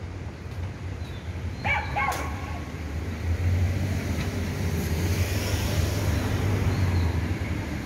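Two short pitched animal calls in quick succession about two seconds in, over a steady low rumble.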